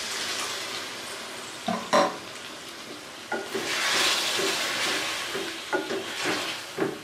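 Chicken and masala sizzling in a metal pot as water is poured in and stirred with a wooden spatula. The sizzle swells about three seconds in, with knocks and scrapes of the spatula against the pot near the start and again towards the end.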